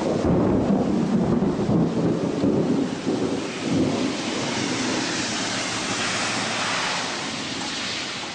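Thunderstorm noise: a loud low rumble for about the first four seconds, easing into a steady hiss of rain and wind.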